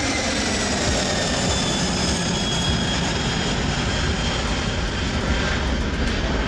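Boeing 747 freighter's four turbofan engines at takeoff power as it climbs away: a steady jet noise with a faint high whine slowly falling in pitch.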